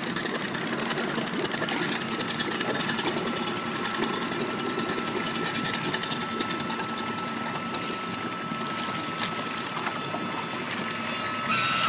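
Boat's sterndrive engine idling with the propeller turning in the water, churning it at the stern, a steady, fast mechanical beat. A thin steady whine runs over it from about two seconds in, and a short louder rush comes just before the end.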